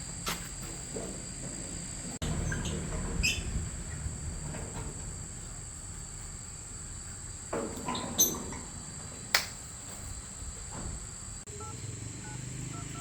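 Insects, such as crickets, making a steady high-pitched drone. A few sharp clicks and knocks sound over it, the loudest about eight and nine seconds in.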